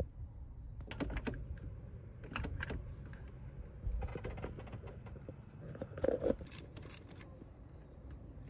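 Scattered metallic clinks and clicks of hand tools, a spark plug socket on an extension and a wrench, being worked on a spark plug in the engine's plug well, in small clusters about a second in, around two and a half seconds, at four seconds and again near six to seven seconds.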